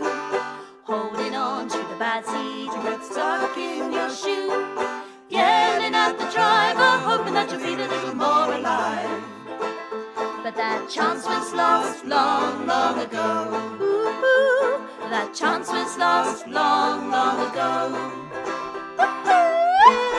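An acoustic song: plucked string instruments playing with a voice singing.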